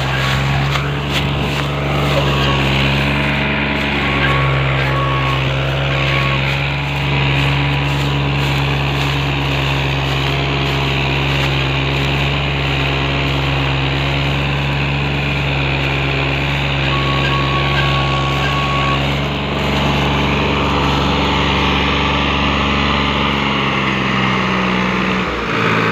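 New Holland tractor's diesel engine running steadily under load, hauling a loaded sugarcane trolley.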